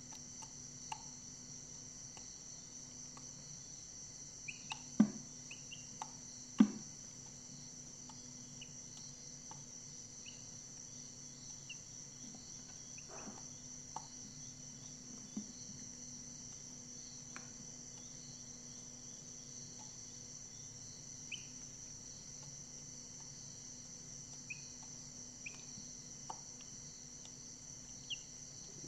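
Steady high-pitched chorus of crickets, with scattered short faint chirps and a few sharp taps, the two loudest about five and six and a half seconds in.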